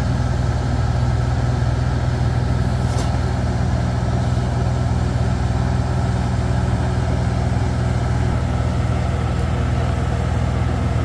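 Farm tractor engine running steadily at a constant speed, its pitch unchanging.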